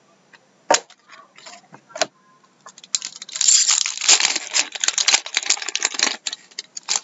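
Trading-card pack wrapper and cards handled by hand: a few sharp clicks, then about three seconds of dense crinkling and tearing from about 3 s in, like a foil hobby pack being torn open, and more clicks near the end.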